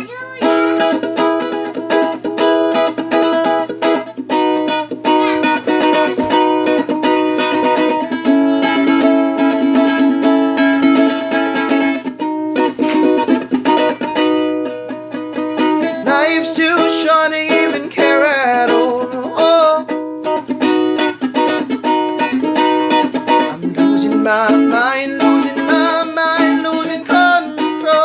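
Ukulele strummed in a steady rhythm of chords, with a voice humming or vocalising along in a couple of stretches without words.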